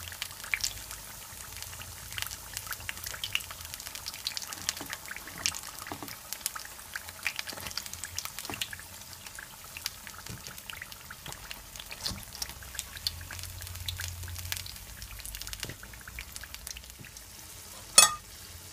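Corned beef fritters frying in hot vegetable oil in a pot: a low sizzle with scattered crackles and pops. A single sharp clink near the end.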